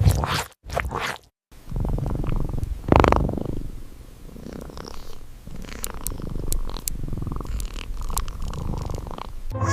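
Cat purring: a low, rough, finely pulsing rumble that sets in about a second and a half in and keeps going. It follows a few short noisy sounds at the very start.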